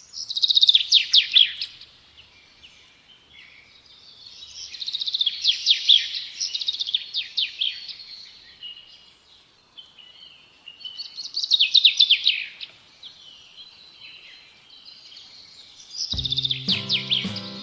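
A songbird singing: four phrases of rapid, high, downward-sweeping notes a few seconds apart, with softer chirps between. Music comes in near the end.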